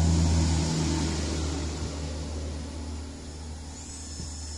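A motor's steady low hum, fading away over the first three seconds. A faint, thin high whine comes in near the end.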